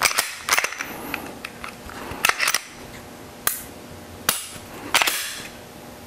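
Smith & Wesson M&P pistol fitted with an Apex reset assist mechanism being dry-fired as a function check: about eight sharp metallic clicks and snaps of the action, some in quick pairs. These include the trigger releasing the striker and the reset snap as the mechanism pulls the trigger bar back under the sear.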